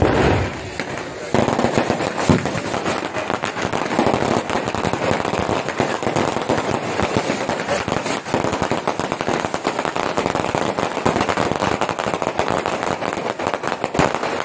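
Fireworks crackling: a dense, continuous run of rapid firecracker pops with no let-up.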